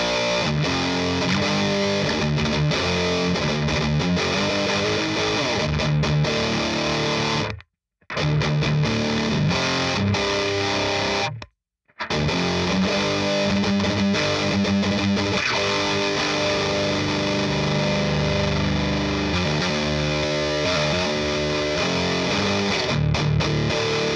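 Distorted electric guitar riffing through a This Heavy Earth Black Mass preamp pedal on its low-gain voicing, boosted by a Pepper's Pedal Dirty Tree, into an Orange PedalBaby 100 and an isolation cab with Vintage 30 and Creamback speakers. The riff stops dead to silence twice, around eight and twelve seconds in.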